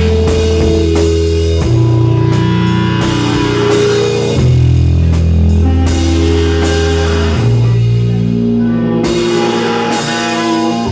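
Live rock band playing an instrumental passage: a drum kit keeps time under guitar and long held bass notes that shift to a new pitch every couple of seconds.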